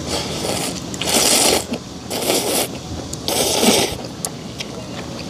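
A man slurping ramen noodles: three long, noisy slurps a little over a second apart.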